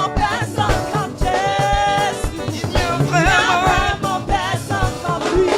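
Gospel choir singing a worship song with music accompaniment, holding long wavering notes.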